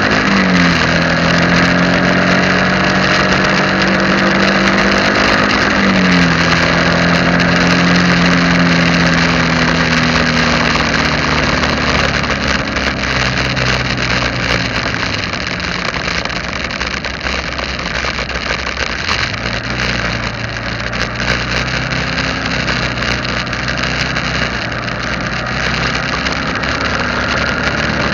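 Vehicle engine running while driving, its pitch stepping down sharply twice in the first six seconds as gears change, then running lower and quieter for a while, over steady road and wind noise.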